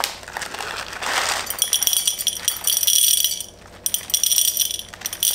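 Small zinc ricinoleate pellets poured from a plastic bag into a glass beaker, pattering and rattling against the glass with a light glassy ring, in two pours. A plastic bag rustles about a second in.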